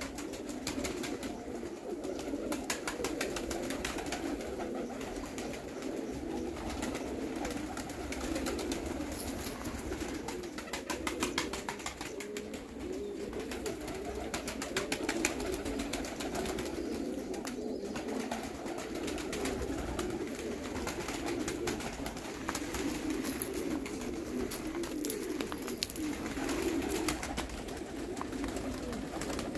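A group of Baku broad-tailed pigeons cooing without a break, their calls overlapping, with scattered light clicks throughout.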